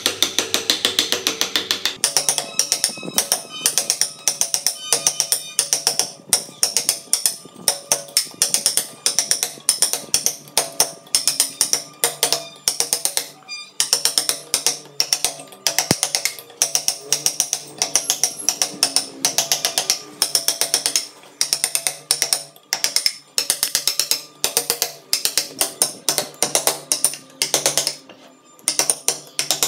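A mallet striking a chisel in rapid, irregular taps, several a second, as the chisel cuts into wood, over steady background music.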